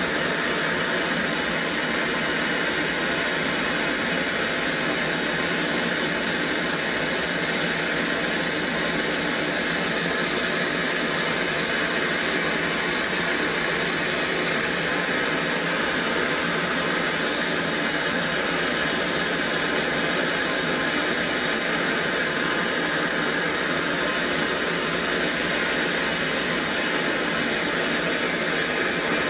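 Handheld gas torch on a yellow fuel cylinder burning with a steady hiss, its flame heating a brass fuel tank for brazing.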